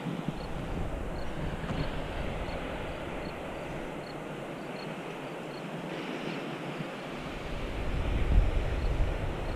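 Wind buffeting the microphone over a steady outdoor hiss, with low gusts about a second in and a stronger gust near the end.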